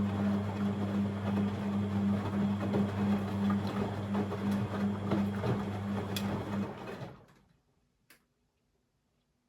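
Beko WML 71433 NP washing machine running with a steady electrical hum and rushing, gurgling water noise. The sound cuts off about seven seconds in, and a single click follows a moment later.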